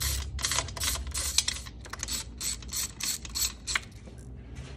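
Hand ratchet wrench clicking as it is swung back and forth, loosening the fuel rail bolts on a Coyote V8's intake manifold. The clicking comes in quick strokes about four a second and stops near the end.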